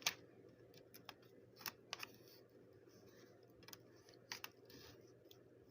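Faint, scattered clicks and crackles of the keyboard's plastic membrane sheet and parts being handled as the sheet is lifted off.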